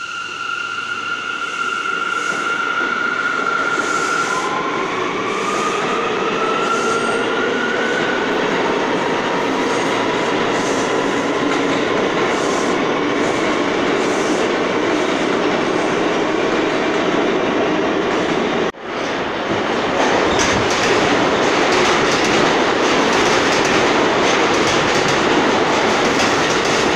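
New York City subway trains. First a train pulls away on the far track with a high electric whine that rises in pitch as it speeds up, over the rumble of its wheels. After a brief dropout about 19 seconds in, a subway train, named in the title as an out-of-service R46, runs fast along the near track close by, its wheels clattering over the rail joints.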